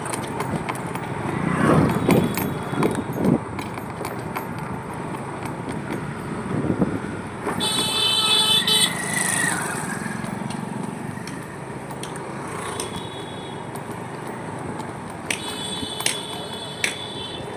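Street din of running vehicle engines, with a few knocks in the first few seconds and a high-pitched horn-like tone sounding about halfway through and again near the end.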